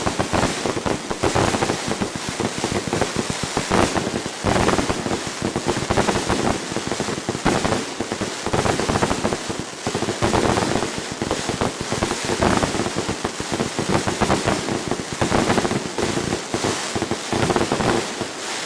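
A large consumer fireworks cake firing nonstop: a dense, rapid run of bangs and crackles that fades out near the end.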